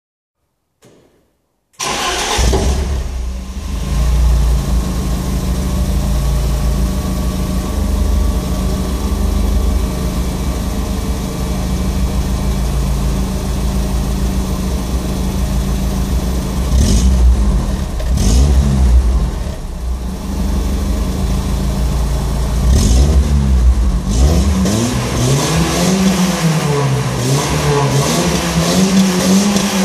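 BMW E30 318i's four-cylinder engine, warm and stock apart from a K&N replacement air filter, starting about two seconds in and then idling steadily. A couple of short throttle blips follow around the middle, and in the last third it is revved up and down repeatedly.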